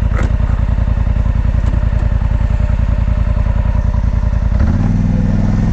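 Polaris Sportsman 850 ATV's twin-cylinder engine idling with an even pulse, then stepping up to a faster, steady hum about four and a half seconds in as the throttle is opened.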